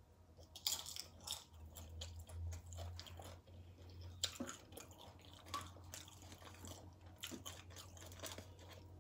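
Close-up chewing of tortilla-chip nachos loaded with black beans and toppings, with irregular crisp crunches as the chips break between the teeth.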